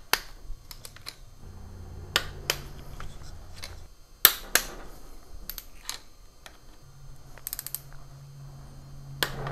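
Click-type torque wrench ratcheting and clicking over as cylinder head bolts are tightened to 20 newton metres: scattered sharp clicks, the loudest about four seconds in and a quick run of clicks near the end.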